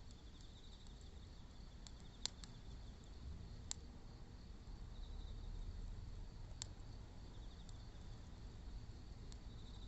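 Wood fire crackling with a few sharp pops, over the steady chirping of insects.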